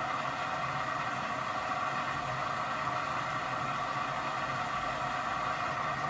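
AEG washing machine running a 95° cotton wash: a steady machine noise with a low hum underneath, no change in pitch or level.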